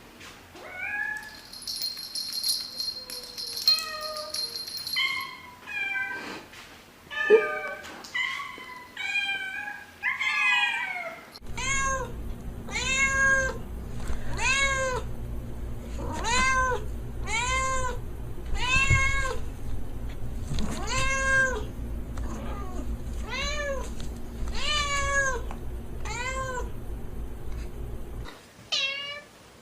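Domestic cats meowing: first a series of varied meows, then a long run of near-identical meows about one a second, each rising and falling in pitch, over a steady low hum.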